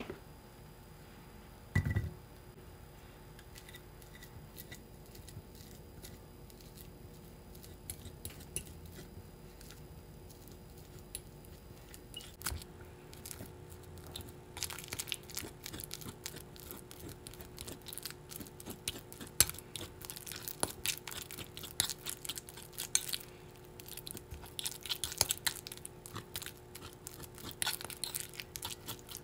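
A fork mashing a ripe banana in a bowl: rapid clicking and scraping of the fork against the bowl, starting about halfway through and carrying on to the end. Earlier there is a single knock, about two seconds in, as something is set down on the table.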